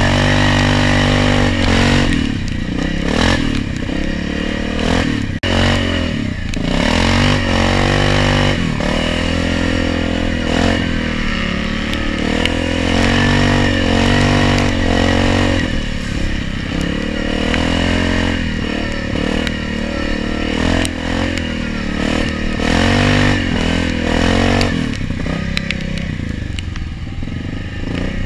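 ATV engine running under load on a rough trail, its revs rising and falling over and over as the throttle is worked.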